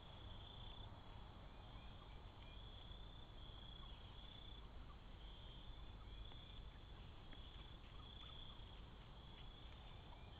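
Crickets chirping faintly in repeated high-pitched trills over the low steady hiss of a trail camera's microphone.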